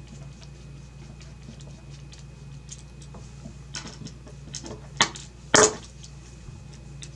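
Small clicks and light metallic taps of a screwdriver working the screws out of a graphics card's fan housing, with two louder sharp clacks about five seconds in.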